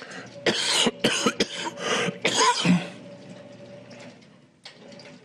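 A person coughing: a fit of about five coughs in quick succession, then one more short cough near the end.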